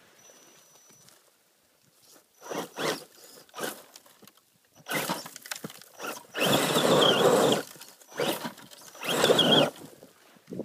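Axial Wraith RC rock crawler's electric motor and geartrain whining in bursts of throttle, the whine rising and falling in pitch, while its tyres spin and scrabble on loose dirt and roots, throwing up dirt. The bursts start about two seconds in, and the longest, loudest ones come past the middle.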